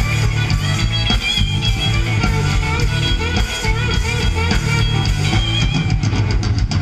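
A live country-rock band playing an instrumental passage between sung sections, with guitar leading over a steady bass and beat.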